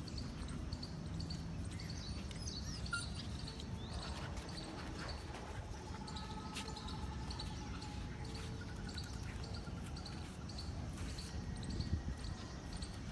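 Small birds chirping repeatedly in short high notes over a steady low background rumble.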